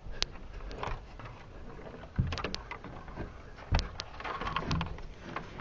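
A person shifting around in briars and handling gear: rustling with scattered sharp clicks and two thuds, about two seconds in and again near the middle.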